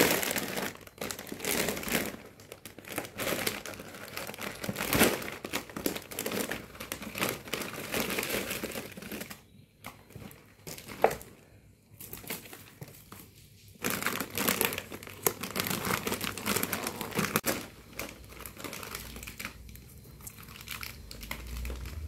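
Plastic snack packets crinkling and rustling as a small child rummages through a pile of them, in irregular bursts, with a quieter stretch of a few seconds around the middle.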